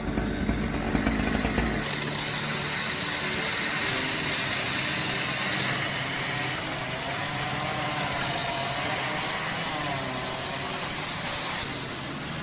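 Husqvarna 3120 XP two-stroke chainsaw running steadily. Its sound changes about two seconds in, from a low rumble to a steady high-pitched whine.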